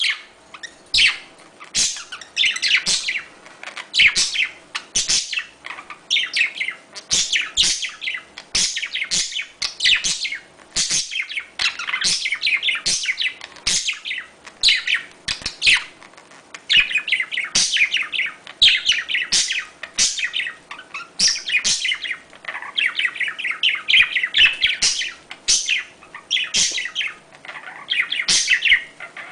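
Budgerigars chirping and chattering in quick, rapid runs of high, warbling chirps, the busy calling of budgies courting.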